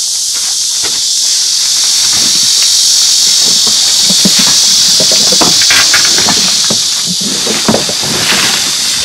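Cicadas droning in a steady high chorus, with scattered knocks and rattles of scrap metal and junk being handled and shifted.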